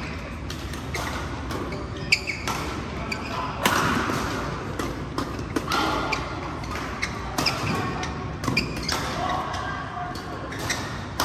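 Badminton rally in a large hall: sharp racket hits on the shuttlecock every second or two, with footwork on the court and voices in the background.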